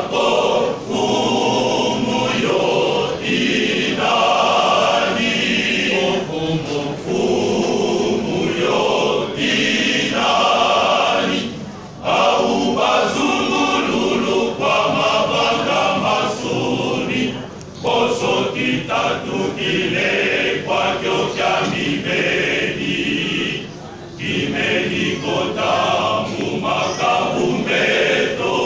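Church choir singing together in full voice, in long phrases with short breaks between them.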